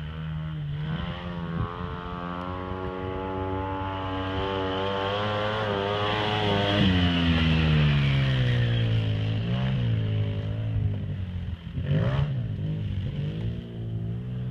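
Polaris RZR 800 side-by-side's twin-cylinder engine revving as the machine drives past: its pitch climbs for several seconds and is loudest about halfway, then falls as it pulls away. Near the end a short rev rises and drops again.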